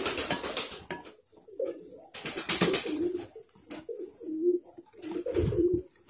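Boiled palm-sugar syrup poured from a metal pot into a plastic bowl and stirred with a spoon, in several short noisy bursts of pouring and scraping. Behind it a dove coos over and over in low, wavering calls.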